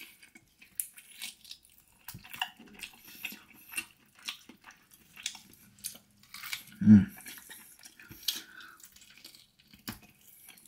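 Someone eating barbecued ribs: scattered soft clicks, smacks and chewing noises, with a brief low voice sound about seven seconds in.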